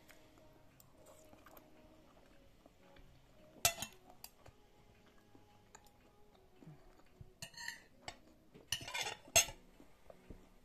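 Fork and knife clinking and scraping on a plate during a meal: one sharp clink about a third of the way in, then a short run of scrapes and clinks near the end.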